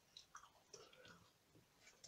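Faint clicks and small noises of a kitchen knife cutting through a soft, chewy sour candy stick, the blade pressing down onto a granite countertop.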